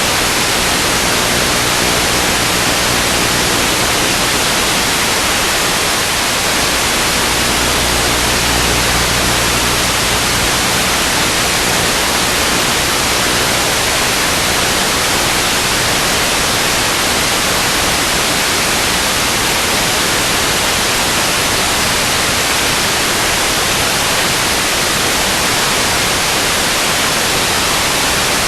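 Steady, loud static hiss from an analog FPV video link's receiver, with a faint low hum under it during the first ten seconds or so.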